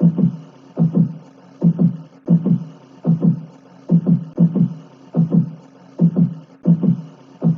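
Heartbeat sound effect: paired low thumps, lub-dub, repeating steadily about every 0.8 seconds over a faint hiss.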